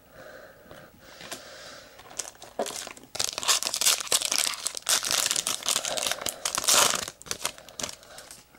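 A baseball card pack wrapper being torn open and crinkled by hand: a burst of dense, sharp crackling in the middle that fades out near the end, with lighter rustling before it.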